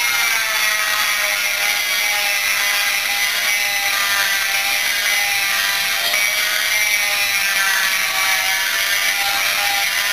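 Dremel rotary tool whining steadily, turned up a little below full speed, with its bluestone grinding point smoothing the exhaust port of a Yamaha Blaster two-stroke cylinder. The pitch wavers slightly as the stone is rolled over the port surface.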